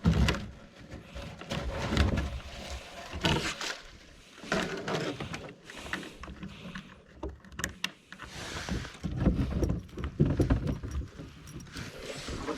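Irregular knocks, thumps and rustling of fishing gear and a caught fish being handled in a small paddle boat.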